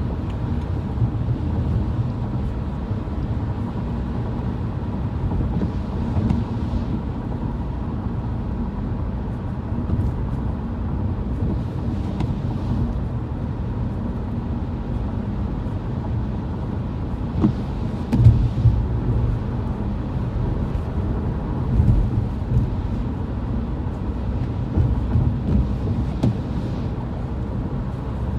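Steady low road rumble inside a moving car, with a few louder bumps and faint passing hisses now and then.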